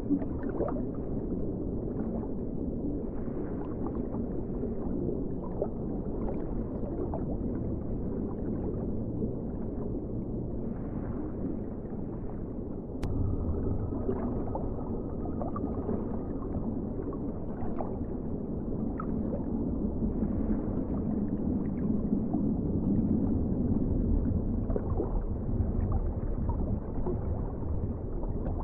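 Underwater ocean ambience: a low, steady rumble dotted with many faint short crackles. A sharp click comes about halfway through, after which the rumble is a little louder and a faint high tone is held for a few seconds.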